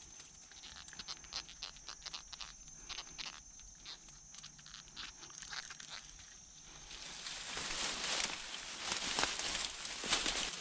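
Crackling and crunching of dry leaves and twigs in bankside brush, then from about seven seconds in a louder, steady rustling of foliage being pushed through.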